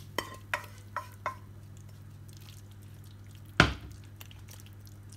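Thick vegetable pie filling being scraped from a bowl into a ceramic pie dish: a few sharp knocks and scrapes against the bowl in the first second and a half, then one loud thump about three and a half seconds in, over a steady low hum.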